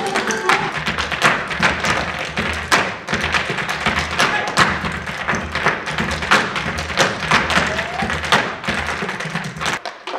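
Hard-shoe percussive step dancing: rapid, dense heel-and-toe taps and stamps of hard shoes on a stage floor over live music with a pulsing low bass. The music drops out near the end while a few taps carry on.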